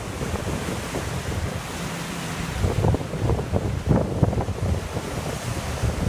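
Big Pacific surf breaking and washing foam around a concrete jetty and rocks, a continuous rushing wash. Wind gusts buffet the microphone throughout.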